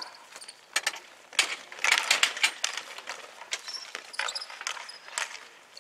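Dek hockey play: a scattered run of sharp clacks and knocks from hockey sticks hitting the ball and each other, busiest about one and a half to two and a half seconds in.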